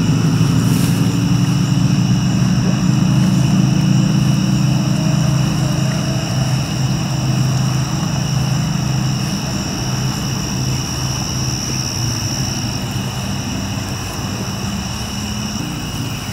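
A steady low hum that slowly fades, over a steady high-pitched chorus of night insects.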